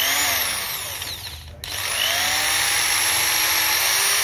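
Zhipuzi corded electric drill free-running with no load: its motor whine rises and falls, then cuts off abruptly about one and a half seconds in. It starts again and climbs to a steady, higher-pitched run. The drill is being tried at its speed settings and has only two.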